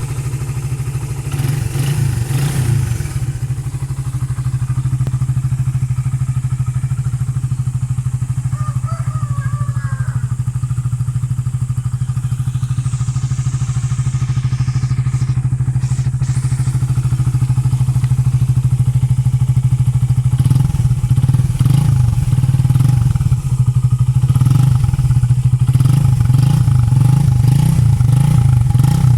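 Suzuki Raider 150 carburettor single-cylinder four-stroke engine running through an Uma Racing aftermarket power-pipe exhaust, idling steadily as it warms up. From about two-thirds of the way in, the exhaust note gets a little louder and more uneven.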